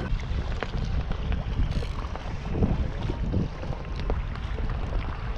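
Wind buffeting the microphone in a steady low rumble, with a few faint small knocks scattered through it.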